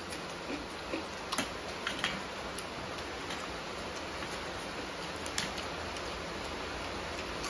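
Eating with the hands from steel plates: a few small, sharp clicks and taps over a steady hiss of room noise, most of them in the first two seconds and one more about five seconds in.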